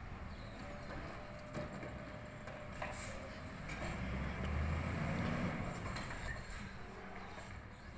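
Recycling truck's diesel engine running at idle, swelling to a louder, deeper rumble from about four seconds in for a couple of seconds, then easing back down.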